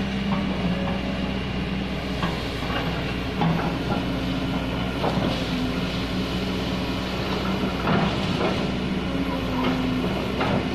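Kobelco hydraulic excavator's diesel engine running steadily under load while its bucket pushes against an old oil palm trunk, with scattered sharp knocks.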